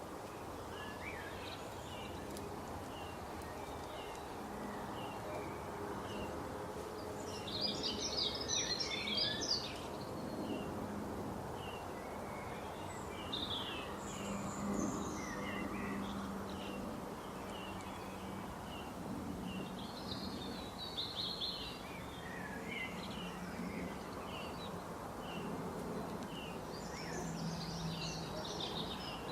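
Great spotted woodpecker giving short, sharp call notes, repeated roughly once a second. Other songbirds break in with brief bursts of song three times. Steady low background noise runs underneath.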